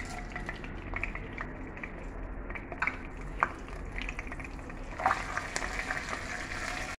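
Whole spices sizzling in hot oil in a kadai, with a few sharp pops through the steady frying sound. From about five seconds in a spatula stirs them and the sizzle grows denser.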